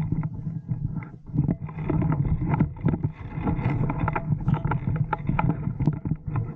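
Wind buffeting an action camera's microphone, with irregular knocks and rustles from a player's movement and gear.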